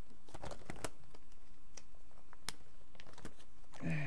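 Pokémon trading cards being handled and flipped through, a scatter of light clicks and taps. A short voiced hum comes near the end.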